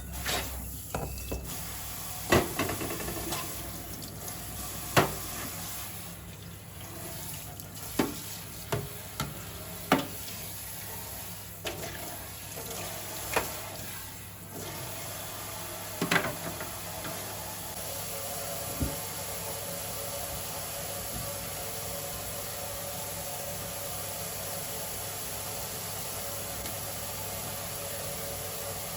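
Water running steadily, with a few sharp clicks and knocks in the first half.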